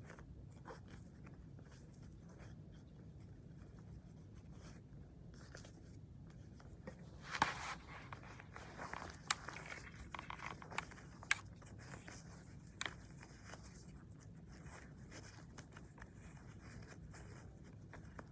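Shoelaces being pulled and tied on mesh sneakers: faint rustling and scraping of the laces, busiest in the middle, with a few sharp small clicks.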